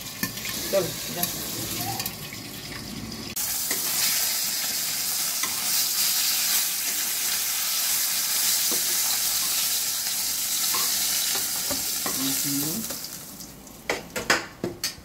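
Fish pieces frying in hot oil in a kadai, with a steady sizzle that gets suddenly much louder about three seconds in and fades near the end. A few sharp knocks come near the end.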